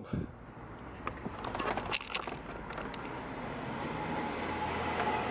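A vehicle going by: an even rushing noise that builds slowly, with a few light clicks and knocks in the first two seconds.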